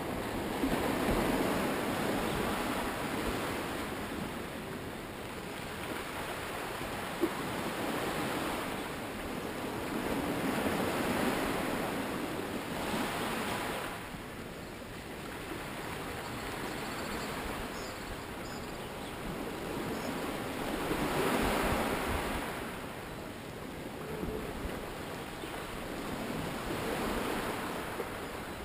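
Small waves washing onto a beach, the surge rising and falling every few seconds.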